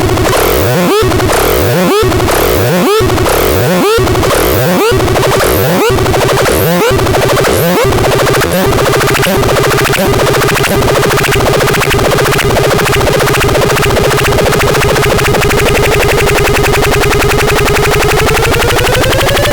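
Rozverné koťátko noise synthesizer producing a harsh electronic tone. It starts as repeated upward-sweeping chirps about once a second, which come faster and faster until they blur into a continuous buzzing drone over a steady hum. Near the end the pitch begins to glide upward.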